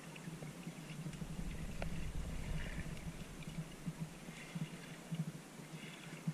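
Muffled underwater noise picked up by a camera held below the surface: a low rumble with an uneven pulsing and a few sharp ticks.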